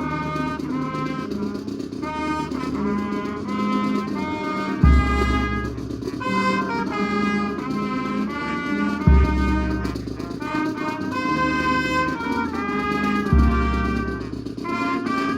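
Brass band music: trumpets and trombones playing held chords, with a heavy bass drum hit about every four seconds, three in all.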